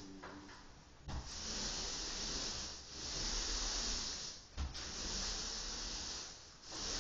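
Paint being sprayed: a long, steady hiss that stops and starts again, with a first burst of about three seconds, a second of about two, and a third beginning near the end.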